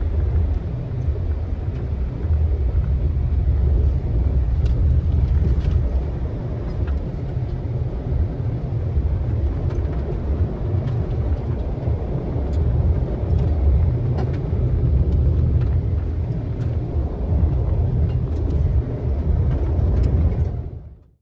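Steady low rumble of a Subaru Crosstrek on all-terrain tyres driving over a dirt and gravel trail, heard inside the cabin, with a few scattered light ticks. It fades quickly to silence at the very end.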